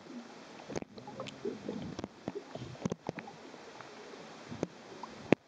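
Muffled underwater sound picked up by a submerged camera: bubbles gurgling, with scattered sharp clicks and knocks.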